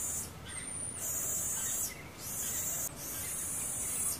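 A steady high-pitched hiss that comes and goes in stretches of about a second, broken by short gaps.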